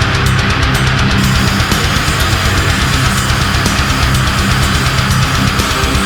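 Loud heavy rock music with distorted electric guitar and a fast steady drum beat.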